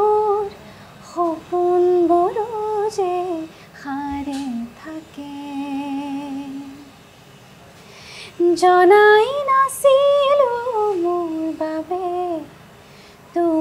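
A woman singing alone without accompaniment: a slow Assamese song in long, ornamented phrases. About four seconds in she drops to a quieter, low held note, then after a short pause comes back louder with a higher phrase.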